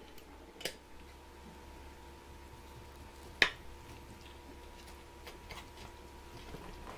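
Kitchen knife cutting through a soft heated lavash shawarma wrap on a plate: faint soft cutting sounds, with one sharp click about three and a half seconds in, over a faint steady electrical hum.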